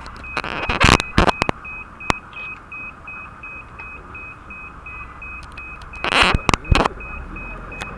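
Level crossing warning alarm beeping steadily at a high pitch, about three beeps a second, starting right at the beginning. A few loud bumps come through near the start and again about six seconds in.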